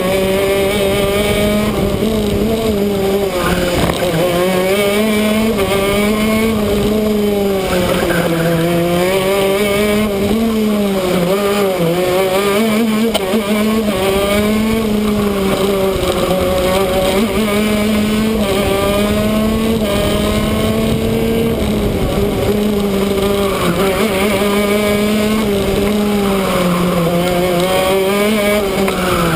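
Shifter kart's two-stroke engine at racing speed, revving hard and continuously, its pitch climbing and then dropping again and again through the gear changes and corners.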